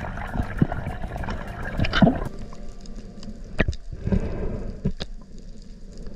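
Underwater sound recorded on a reef dive: a muffled, steady wash of moving water with many scattered sharp clicks and crackles, a few louder clicks standing out now and then.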